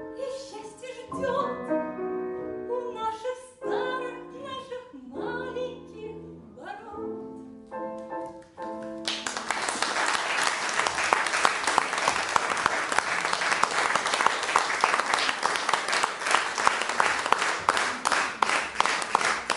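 A woman singing the closing phrases of a song with grand piano accompaniment, held notes ending about nine seconds in; audience applause then breaks out suddenly and continues.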